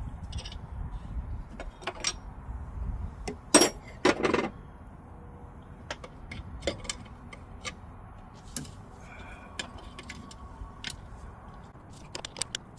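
Hand wrenches clinking and knocking against metal while nuts are loosened off the brake master cylinder, with scattered short clicks and two louder scraping strokes about three and a half and four seconds in.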